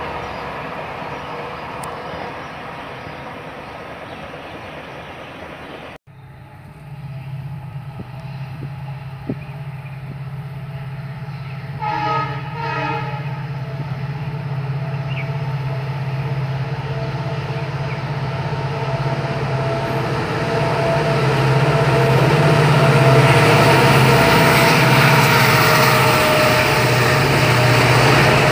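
Goods train running along the tracks, a steady low rumble and hum that grows louder toward the end as the locomotive and wagons draw near. A train horn sounds once, briefly, about twelve seconds in.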